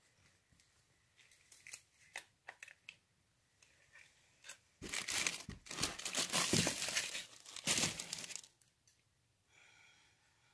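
Plastic wrapping crinkling as a bagged newspaper is handled and moved: a few scattered crackles, then about four seconds of dense, loud crinkling starting about halfway through.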